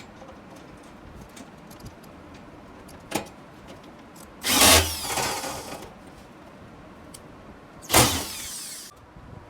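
A single knock, then two short bursts of a power tool, each about a second long, roughly three seconds apart.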